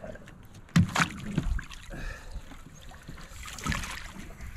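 Knocks and water sounds at the side of a fishing boat as a large catfish is landed in a net. A sharp knock about a second in is the loudest, with a few smaller knocks after it.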